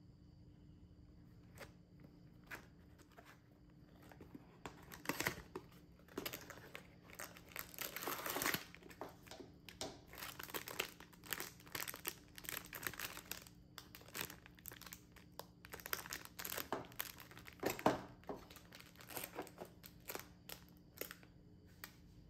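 A few light handling clicks, then the thin plastic wrapping around a stack of V60 paper coffee filters crinkles as it is drawn out of its cardboard box and turned over in the hands. The crinkling starts about four seconds in and stops near the end, with a couple of louder rustles along the way.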